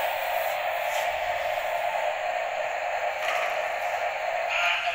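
Small electric motors and plastic gearboxes of a toy RC stunt truck whirring steadily as it drives.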